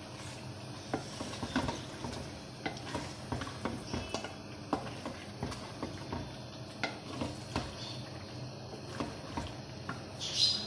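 Wooden spoon stirring raw chicken pieces through thick masala in a steel karahi: irregular soft knocks and scrapes of wood against the steel pan, with squelches of the wet mixture.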